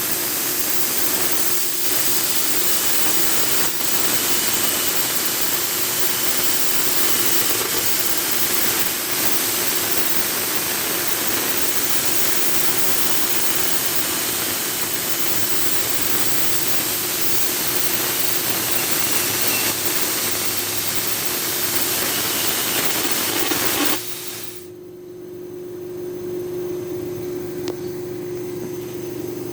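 CNC plasma cutter torch cutting with a loud, steady hiss that cuts off suddenly near the end, leaving a quieter steady machine hum.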